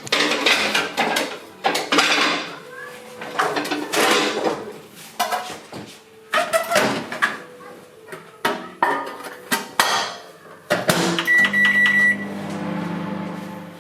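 Kitchen clatter of dishes and cupboards being handled, then a microwave oven beeps for about a second and starts running with a steady low hum.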